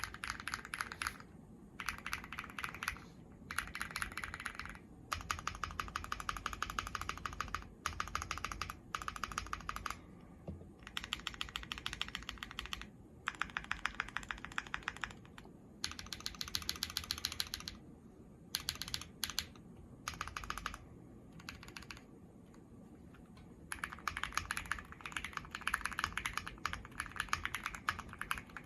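Mechanical keyboard with Gateron CM 3.0 linear switches on an FR4 plate under PBT keycaps, tape-modded and without case foam for a clacky, marbly sound, being typed on fast in bursts of a second or a few seconds with short pauses between, and a longer pause a little before the end.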